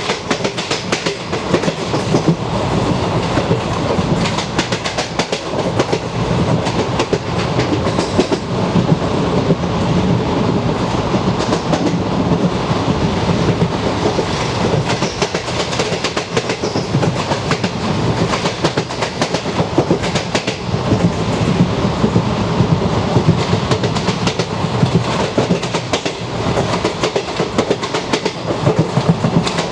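Vintage ICF passenger coach running along the line, its wheels clattering over the rail joints in a steady clickety-clack over a continuous rumble, heard from inside the coach.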